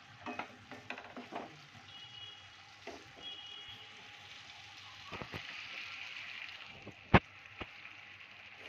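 Potato slices frying in masala gravy in a non-stick kadhai, a steady sizzle. A wooden spatula scrapes the pan a few times near the start, and there is one sharp click about seven seconds in.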